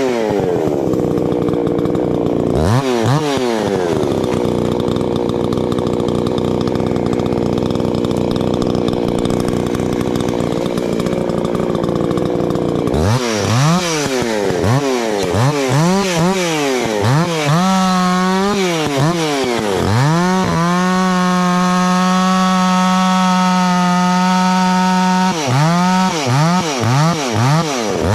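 Two-stroke chainsaw revved in quick throttle blips, then held at steady high speed for about nine seconds with a rough, noisy sound as it cuts wood. More rising and falling blips follow, then about five seconds at a clean, steady full throttle before it drops back to blipping near the end.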